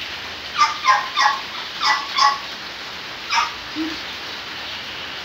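A dog whimpering in short, high yelps, about six in all, each dropping in pitch and coming in quick pairs.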